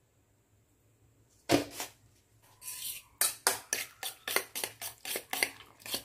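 Near silence, then a single knock about a second and a half in, followed by a fork beating raw egg mixture in a stainless steel bowl: quick metal-on-metal clinks and scrapes, about five a second.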